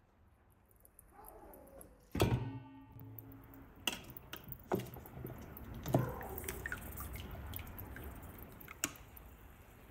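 Metal tongs knocking on the rim of a large metal cauldron: one loud clang about two seconds in that rings on for about a second, then several sharper clicks and knocks. Between them, broth drips and splashes as pieces of boiled beef are lifted out of the pot.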